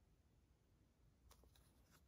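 Near silence, with faint soft clicks and rustles from about a second and a quarter in as a small paper sheet and a nail art brush are handled.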